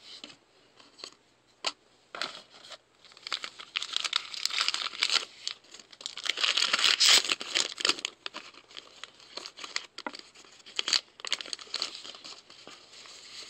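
Foil wrapper of a baseball card pack crinkling and tearing as it is ripped open, in irregular bursts, densest about halfway through, with a few sharp snaps.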